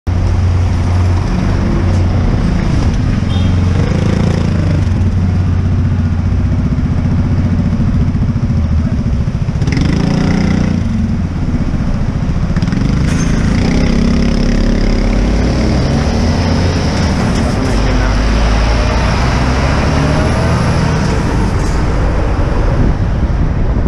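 Busy city traffic at close range: lorry and car engines running, loud and steady.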